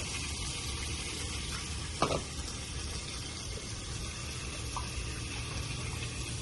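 Fish cooking in a frying pan in a garlic, tomato and white-wine sauce: a steady hissing sizzle and simmer, with one short knock about two seconds in.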